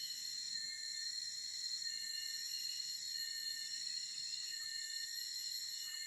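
Steady chorus of crickets and other insects singing at several high pitches at once, some voices dropping in and out.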